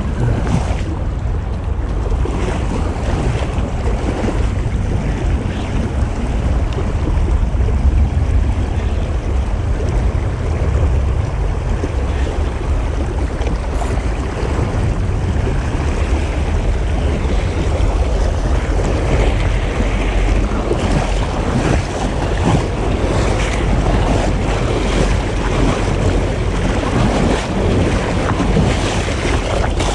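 Steady rush of a shallow creek flowing over gravel, with a heavy low rumble of wind buffeting the microphone.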